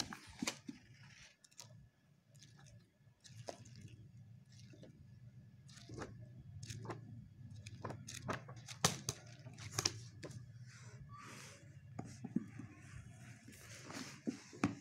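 Pages of a paperback book being flipped and handled: a run of short, irregular paper rustles and flaps, over a low steady hum.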